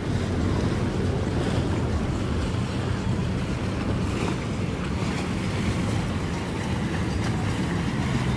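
Steady wind buffeting the microphone over the low rumble of boats and water on open water.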